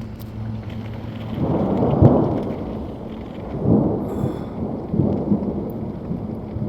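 Thunder rolling over steady rain, loudest about two seconds in, with further rumbles a little before four seconds and around five seconds.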